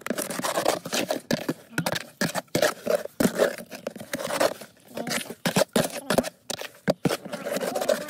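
Trowel scraping and stirring through a wet sand-and-cement mortar mix against the sides of a plastic tub, in quick irregular strokes.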